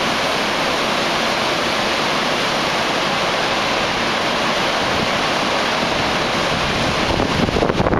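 The Iguazú Falls, a steady rush of water from the cascades plunging into the river below. From about seven seconds in, wind buffets the microphone in uneven gusts.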